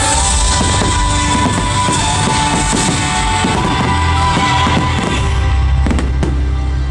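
A fireworks display set to loud music: a continuous music soundtrack with firework bangs over it, and a cluster of sharp bangs about six seconds in.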